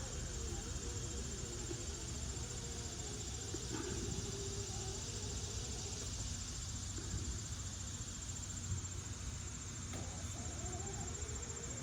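A steady high-pitched insect trill over a low background hum.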